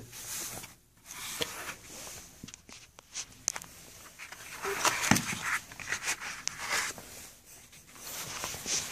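Handling noise: rustling with scattered small clicks and scrapes as a compact pistol and its magazines are handled over a foam-lined plastic case, with a sharper knock about five seconds in.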